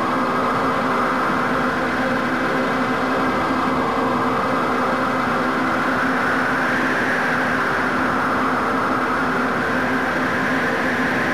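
Steady, loud rush of air past a BASE jumper tumbling in freefall, with a steady low hum beneath it.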